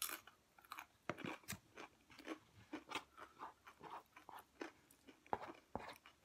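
Close-miked chewing of crunchy food, a quick irregular run of small crunches and mouth clicks, about two to three a second.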